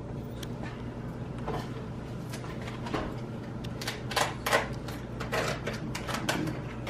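A plastic-wrapped meat tray being handled and cut open: scattered clicks and short crinkling rustles of the plastic film and tray, thickest about four to six and a half seconds in, over a low steady hum.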